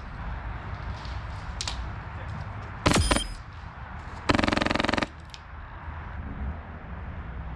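Airsoft gun firing: a short burst about three seconds in, then a fast full-auto burst lasting about a second.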